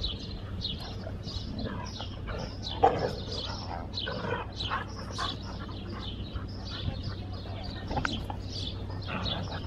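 Small birds chirping over and over, with a few short louder noises, the sharpest a sudden crack about three seconds in.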